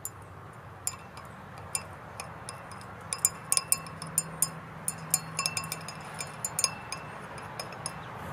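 A stirring rod clinking against the inside of a glass beaker as a solution is stirred. It gives many short, ringing taps at an irregular pace, starting about a second in and coming thickest in the middle.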